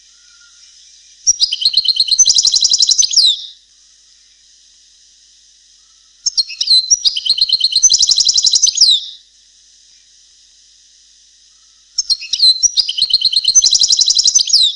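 European goldfinch singing three phrases of rapid twittering notes, each about two seconds long, with pauses of about three seconds between them, over a faint steady hiss. It is a tutoring song for young goldfinches, in the style keepers call the Palestinian dialect.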